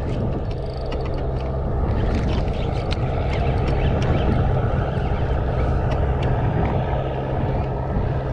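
An engine running steadily, its low hum growing a little louder over the first couple of seconds, with scattered light clicks above it.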